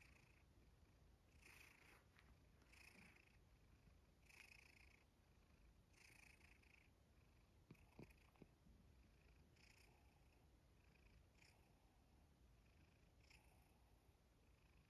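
Domestic cat purring faintly while being stroked, in a slow rhythm of breaths about every one and a half to two seconds.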